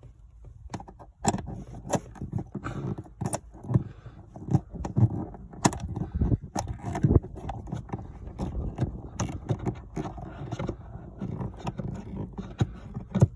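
Irregular metallic clicks, clinks and scraping of a 6 mm spanner working loose the screws of a car's pollen filter housing.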